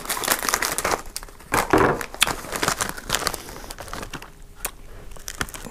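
Plastic snack wrapper crinkling and rustling in irregular bursts as it is handled and opened.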